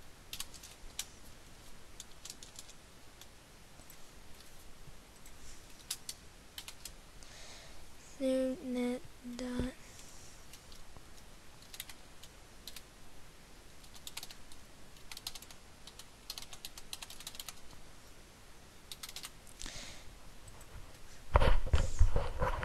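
Typing on a computer keyboard: irregular keystrokes and clicks. A short hummed voice sound of three brief notes comes about eight seconds in, and a loud, low bump lasting about a second comes near the end.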